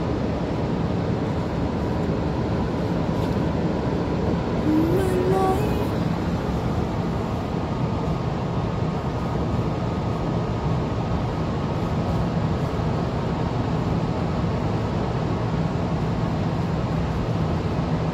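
Steady road and engine noise heard from inside a moving car's cabin, with a brief rising pitched sound, such as a voice, about five seconds in.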